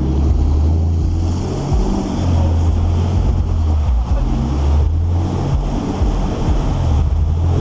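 Pickup truck's engine running hard as the truck ploughs through deep muddy water. Water sprays and sloshes along the side of the truck, with wind buffeting the microphone.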